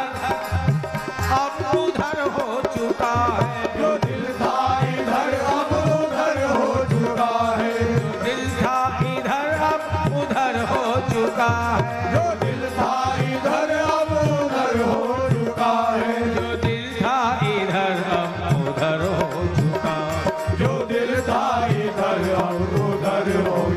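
A Hindi devotional bhajan sung by a man, his voice gliding through long melodic lines, over a drum keeping a steady beat.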